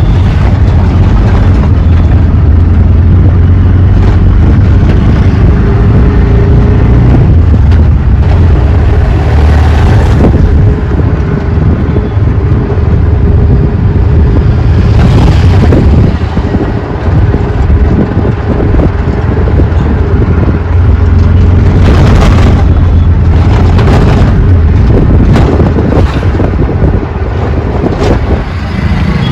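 Auto rickshaw's engine running steadily with a loud low rumble as it drives, with wind buffeting the microphone and road noise. Several brief swells of louder noise come and go along the way.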